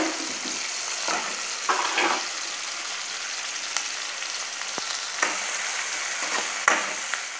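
Onions, tomatoes and curry leaves sizzling steadily in hot oil in a kadai while they sauté down, with a few short scrapes of a metal spoon stirring them.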